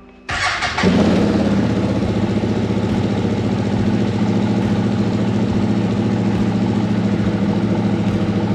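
CFMoto ZForce 800 EX side-by-side's V-twin engine starting about a quarter second in, with a brief flare as it catches, then settling into a steady idle.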